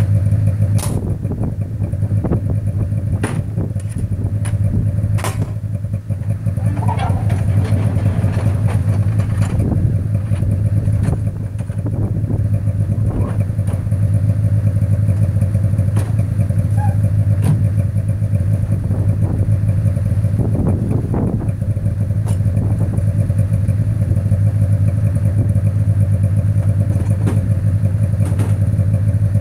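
An engine idling steadily, with scattered clicks, knocks and clatter over it.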